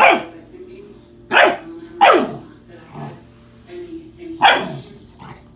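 Eleven-week-old Doberman puppy barking at a Swiffer floor mop: four loud barks, each falling in pitch, with a couple of softer barks between them.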